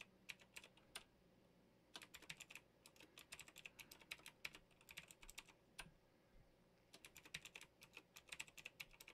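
Faint computer keyboard typing: quick runs of key clicks in four or so bursts, with short pauses between them.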